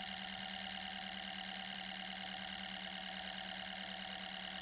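OMC-5 eight-pulse revolving armature engine, a small Froment-style electromagnetic model engine, running with a steady, even hum.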